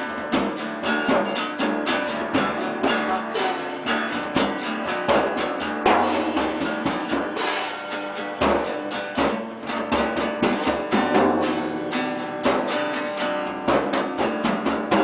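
Live band jam with guitar and drum kit playing an instrumental passage, with a steady beat.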